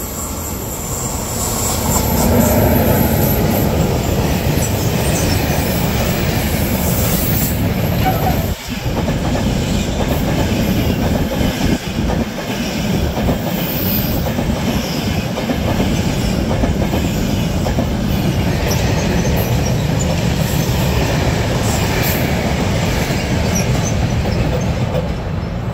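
Two trains passing through a station at the same time, an ETR 460 Frecciabianca high-speed electric train and a freight train of covered wagons. Their wheels run on the rails with a continuous, loud rushing rumble that builds over the first two seconds, then holds.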